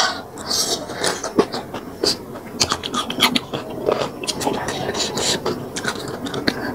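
Close-miked eating of rice vermicelli noodles: chewing with many wet smacks, clicks and slurps. A short hissing breath is drawn about half a second in, against the heat of very hot chilli.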